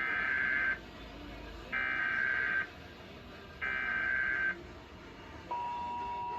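Emergency Alert System SAME header: three short bursts of warbling digital data tones, about two seconds apart, that mark the start of an EAS alert. About five and a half seconds in, the steady EAS attention tone begins.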